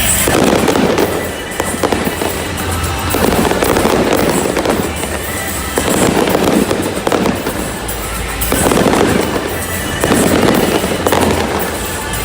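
Fireworks bursting and crackling in a continuous barrage that swells in waves about every two seconds, with music from the stadium's sound system playing underneath.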